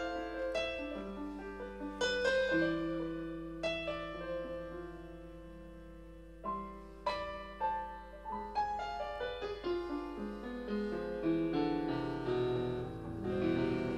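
Stage keyboard with a piano sound played solo: slow chords and single notes, each struck and left to ring and fade. It thins to a lingering chord near the middle, then grows busier toward the end.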